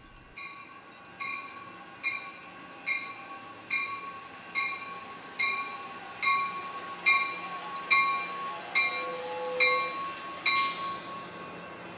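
Railroad grade-crossing signal bell ringing at an even pace, a little more than one strike a second. A brief hiss comes near the end.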